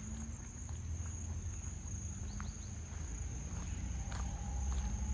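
Insects droning in a steady high-pitched tone, with a few short chirps about two and a half seconds in and a low rumble underneath.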